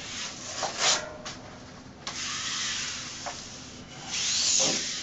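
Hands sliding and pressing a large wall-wrap sheet with its wax-paper backing against the wall, the sheet rubbing and rustling. There are three strokes: a short one about a second in, a longer one about two seconds in, and the loudest near the end.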